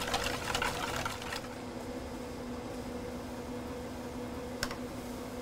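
Wire whisk beating a cream custard in a stainless steel bowl, rapid scraping strokes against the metal that stop about a second in. A steady low hum follows, with a single sharp click near the end.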